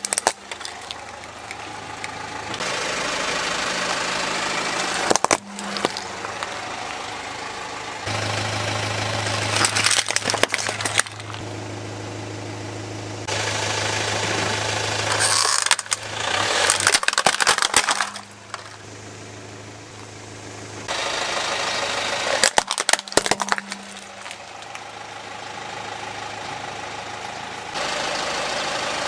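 Car engine idling as the tyre rolls slowly over plastic toys, which crack and crunch under it in about five bursts. The steady engine noise jumps in level between short clips.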